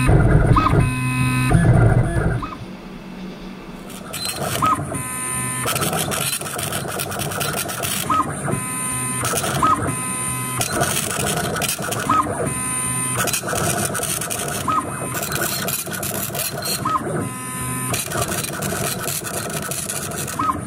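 Background music for about the first two seconds. Then the CNC machine's stepper motors whir and whine in short start-stop moves, with brief rising and falling tones, as the diamond drag bit engraves lettering into glass.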